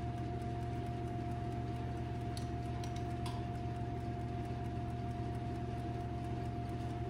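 Steady electrical appliance hum with a constant thin tone over it, and a couple of faint light clicks about two and a half and three seconds in.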